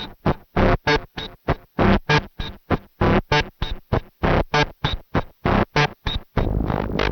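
Eurorack modular synthesizer playing a sequence of short, sharply enveloped notes, about three to four a second, through an Erica Synths Black Ring XFade ring modulator and Black Dual ASR envelope generator. Near the end the notes give way to a continuous sustained tone with a heavy bass.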